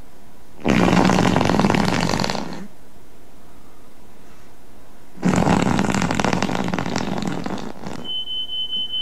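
Two loud, rough rasping noises, each about two seconds long and a few seconds apart, then a steady high-pitched beep near the end.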